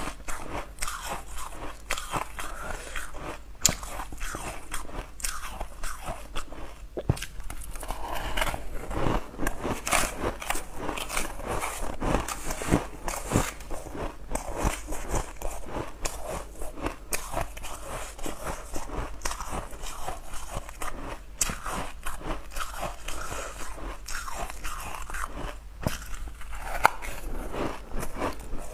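Close-miked crunching and chewing of mouthfuls of powdery, snow-like ice, a dense, continuous crackle of crisp bites.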